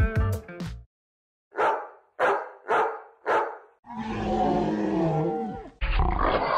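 A dog barking four times in quick succession, then a longer, drawn-out call that wavers in pitch, followed by a short noisy burst near the end.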